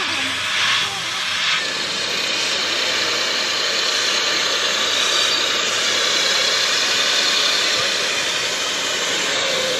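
Small electric motors driving the rod actuators of a model excavator's boom, arm and bucket, giving a steady high whirring hiss as the arm moves.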